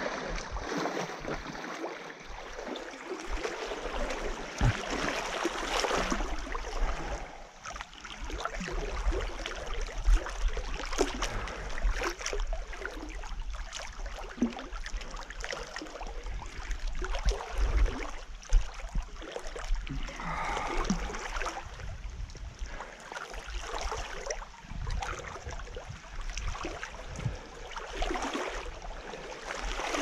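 Big Sur River water splashing and gurgling in an uneven, irregular wash, with low buffeting on the microphone.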